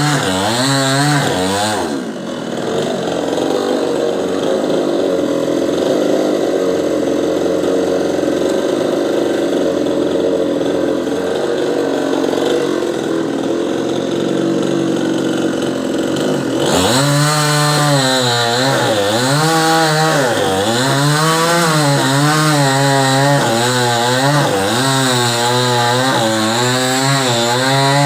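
Two-stroke chainsaw cutting into a coconut tree trunk. The engine runs at a steady, duller pitch for a long stretch in the middle, then from near two-thirds of the way through its pitch repeatedly drops and climbs as the chain bites and frees.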